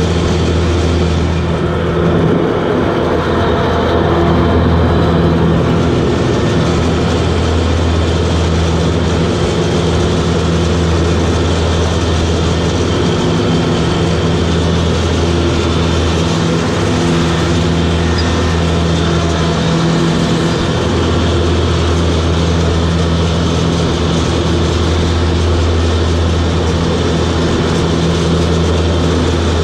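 Toro Groundsmaster 7210 zero-turn ride-on mower running steadily, heard from the operator's position: a constant engine drone over broad machine noise, with a few slight dips in the engine note partway through.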